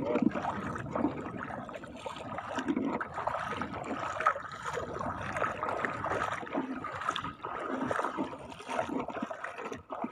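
Shallow seawater sloshing, trickling and gurgling without a break, with many small uneven splashes as someone wades through it.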